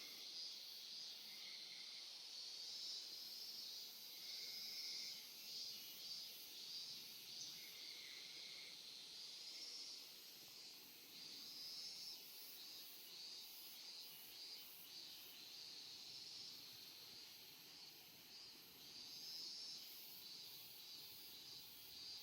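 Faint, steady chorus of crickets chirping, high-pitched with a pulsing shimmer.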